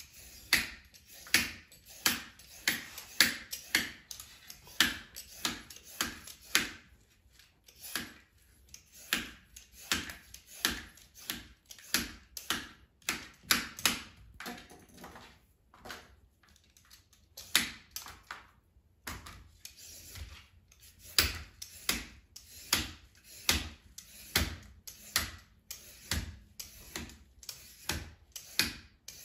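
Vegetable peeler scraping peel off a cucumber in short, repeated strokes, roughly two a second, with a few brief pauses.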